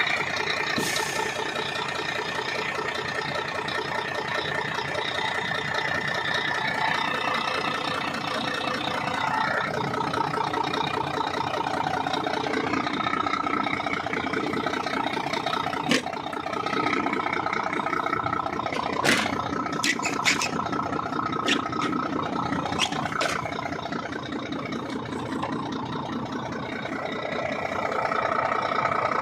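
Scania 4-series truck's 380 hp PDE diesel engine running steadily, its pitch shifting a few times, with several sharp clicks about two-thirds of the way through.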